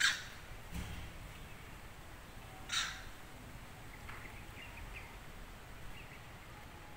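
Two short, harsh calls, one right at the start and one about three seconds in, with faint bird chirps in between.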